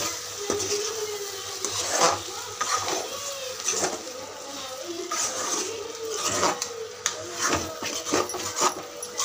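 Wooden spatula stirring and scraping a thick chicken liver masala around an aluminium kadai, with irregular scrapes and knocks against the pan.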